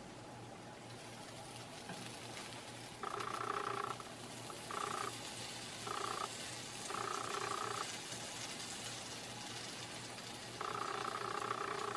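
Omelet sizzling faintly in the hot nonstick pan. A steady two-toned hum cuts in and out about five times from about three seconds in, louder than the sizzle.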